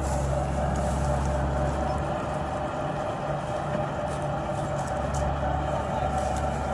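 Heavy farm machinery engines, tractors and combine harvesters, running steadily with a continuous engine hum. The deepest part of the hum drops away about two seconds in and comes back shortly before the end.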